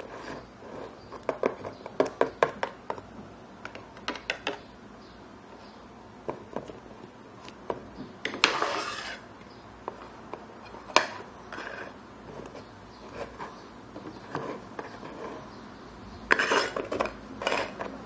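Plastic Littlest Pet Shop figures and toy furniture handled and set down on a tabletop: scattered light clicks and taps, in quick runs about two and four seconds in, with a brief scraping rustle about eight and a half seconds in and another flurry of taps and rubbing near the end.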